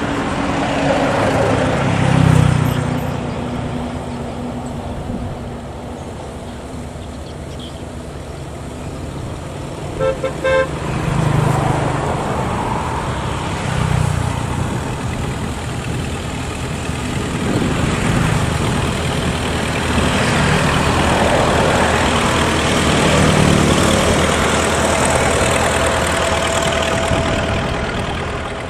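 Engines of motorized wooden cargo boats running as they pass along the canal, a steady hum that swells and fades as they come and go. A horn gives a short double toot about ten seconds in.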